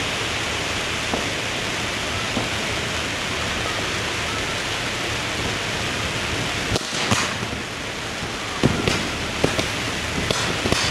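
Fireworks going off: a steady, dense hiss, then from a little past halfway a run of sharp cracks, several close together near the end.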